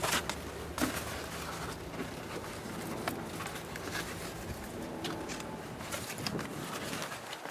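Scattered clicks and rustles of a plastic door insulation sheet being handled, over a faint steady low hum.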